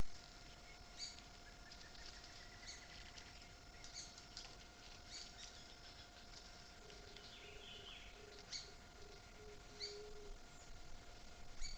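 Faint natural bush ambience: several birds chirping and calling with short, high notes scattered throughout, and a run of about six low, evenly spaced notes about seven seconds in.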